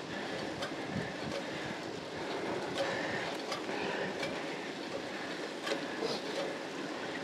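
Road bicycle climbing a steep wet road at slow speed, heard from a camera on the rider: a steady rolling rumble of tyres and bike with irregular small clicks and rattles.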